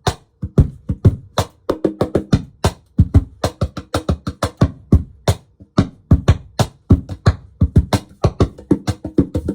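Meinl laptop cajon played by hand in a quick, steady groove, mixing deep bass-drum hits with sharper snare-like slaps, amplified through a small bass amp.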